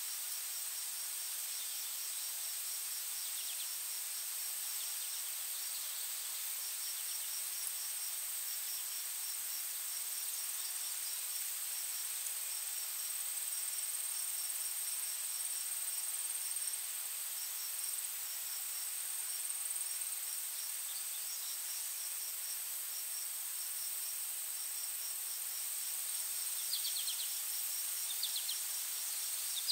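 Insects: a steady high-pitched drone with rows of short, evenly spaced chirps in repeated groups, and a few quick high calls near the end.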